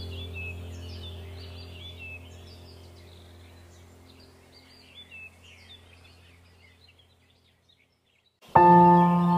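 Ambient background music with a steady low drone and birdsong chirps, fading out to near silence; about a second before the end a new ambient track starts abruptly with a loud, sustained ringing chord like a singing bowl.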